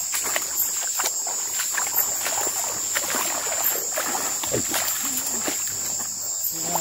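Night insects keeping up a steady high-pitched drone, with scattered light clicks and knocks.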